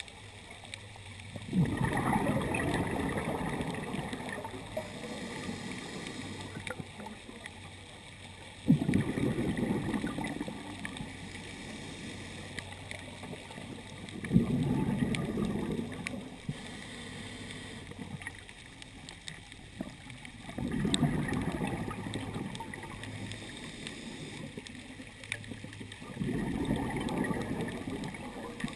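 Scuba diver's exhaled breath bubbling out of the regulator, heard underwater through a waterproof camera housing: five bursts of bubbles, each lasting two to three seconds and coming about every six seconds, in a slow steady breathing rhythm, with quieter underwater background between them.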